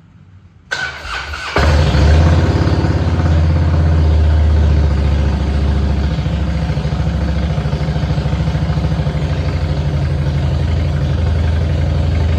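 Harley-Davidson Dyna Low Rider V-twin cranked on its electric starter; it catches after about a second and settles into a steady idle with a deep, pulsing beat.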